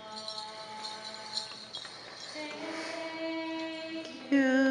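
Slow accompaniment music with long held notes, then a voice starts singing loudly near the end.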